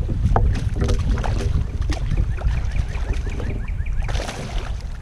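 Wind rumbling on the microphone over water around a kayak, with scattered clicks and knocks as a hooked fish is reeled in; a splashy rush about four seconds in as the landing net goes into the water.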